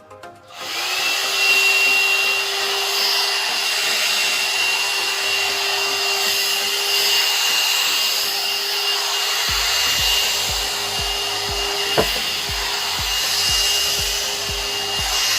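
A 1000 W hot-air dryer brush switched on at its low setting: steady rushing airflow with a steady motor whine, starting about half a second in. In the second half a low pulsing comes about twice a second, with one sharp click.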